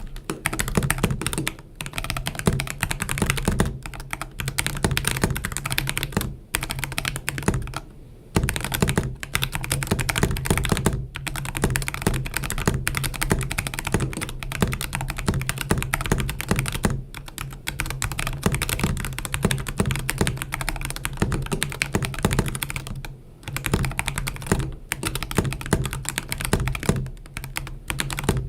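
Continuous typing on an Azio Cascade 75% mechanical keyboard: a dense clatter of keystrokes, broken by short pauses every few seconds.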